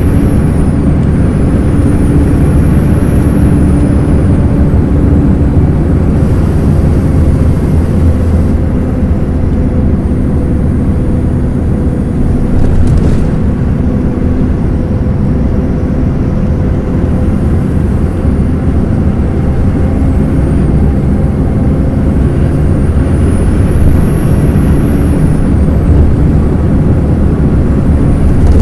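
MCI D4000 transit coach's Detroit Diesel Series 60 engine running steadily, heard on board while under way, a constant low drone with road rumble.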